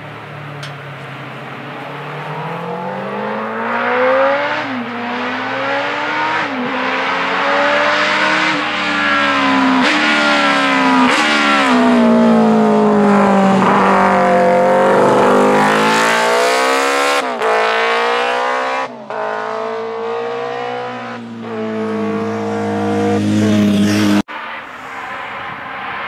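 Classic Honda racing motorcycle engine revving hard as it approaches through a bend and accelerates away. Its pitch climbs and then drops sharply several times at gear changes, loudest as it passes, and the sound cuts off abruptly near the end.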